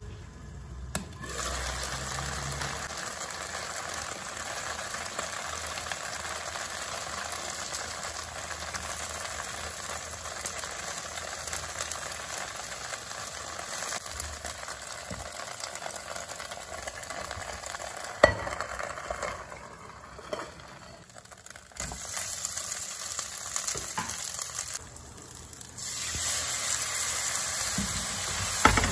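Dumplings frying in oil in a nonstick wok: a steady sizzling hiss with a few sharp clicks, growing louder near the end.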